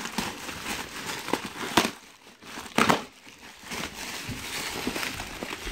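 Plastic packing bags crinkling and rustling as hands dig through them in a cardboard box, with two sharper, louder crackles about two and three seconds in.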